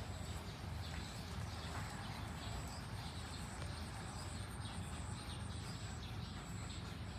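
Steady outdoor background: a low rumble, with a faint, high, evenly pulsing tone about twice a second and a few soft short sounds over it.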